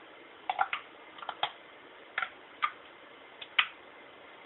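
About a dozen sharp, uneven clicks and taps as small metal parts of a dismantled 700R4 automatic transmission are handled and knocked together. The loudest click comes near the end.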